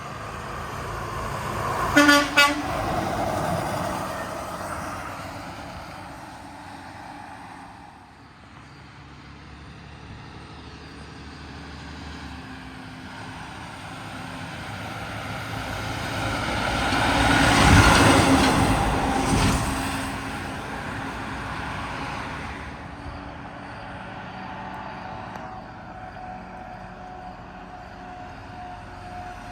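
Two short, loud horn toots about two seconds in, then a truck passing by, its noise swelling to a peak about two-thirds of the way through and fading away.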